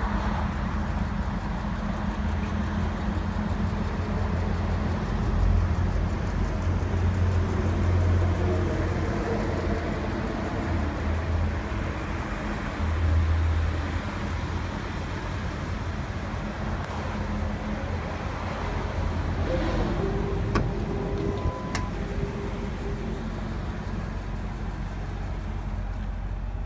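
The Ford SVT Lightning's supercharged 5.4-litre V8 idling steadily. About three quarters through there are two sharp clicks and a short steady tone.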